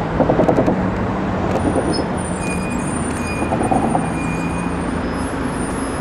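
Steady city road traffic noise, with brief bursts of rapid pulsing about half a second in and again near four seconds.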